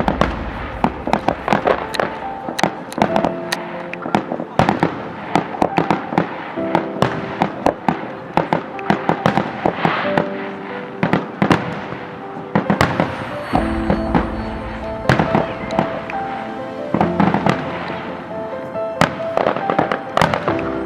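Fireworks going off in rapid, continuous sharp cracks and pops, with music playing underneath.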